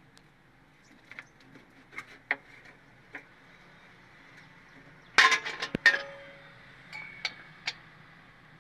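Metal hand tools clinking and tapping on a stopped truck engine's top end: scattered light ticks, then a short run of loud, sharp clinks about five seconds in.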